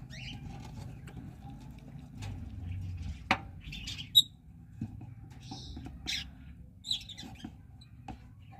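Pet lovebirds giving scattered short, high chirps, the loudest about four seconds in, over a faint steady hum, with one sharp click a little after three seconds.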